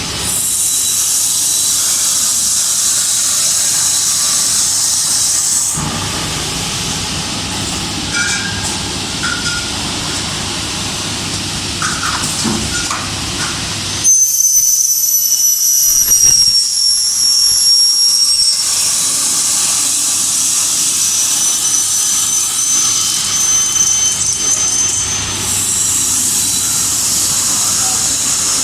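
CNC machining center for aluminium profiles at work: a high-pitched spindle whine over steady hissing, which changes in loudness and pitch between cuts. The whine is loudest from about halfway through for a few seconds.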